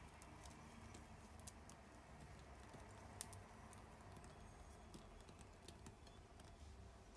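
Near silence with faint scattered clicks and two sharper ticks, about a second and a half and three seconds in: chopped nuts being crumbled and sprinkled by hand.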